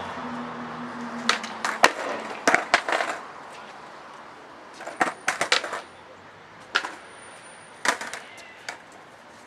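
Skateboard knocking on concrete pavement: a dozen or so sharp clacks of the deck and wheels in two bunches, with a passing car fading out at the start.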